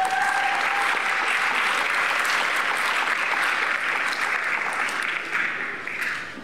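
Audience applauding steadily in a large hall, dying away near the end.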